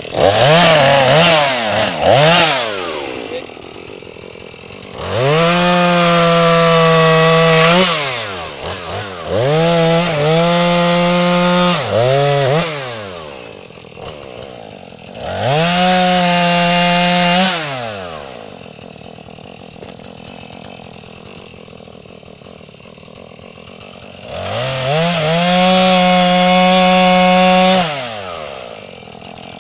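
Gas chainsaw bucking an oak log into blocks. At each cut it revs up to full throttle and holds there for two to three seconds while cutting, then drops back to idle. It does this about five times, with a longer stretch of idling in the middle.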